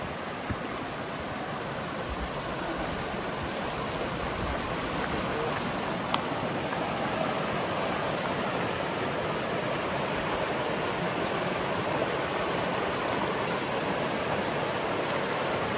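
Rushing river running fast over rocks and shallow rapids: a steady rush of water that grows louder over the first several seconds, then holds.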